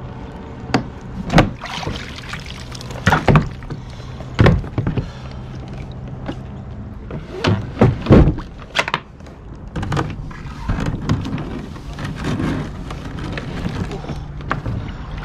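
An engine running steadily at a low, even hum, with a series of sharp knocks and thuds over it, the loudest a cluster about eight seconds in.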